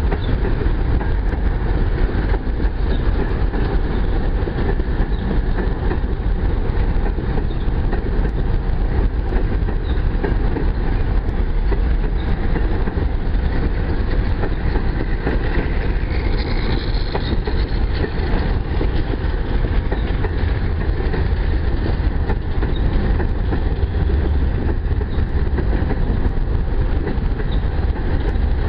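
Empty freight cars, covered hoppers and boxcars, rolling past at close range: a steady, loud rumble of steel wheels on the rails with light clacking over the joints, and a brief wheel squeal about sixteen seconds in.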